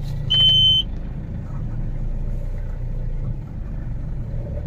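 Mahindra Bolero pickup's diesel engine running steadily on the road, with a short, loud, high-pitched beep about half a second in.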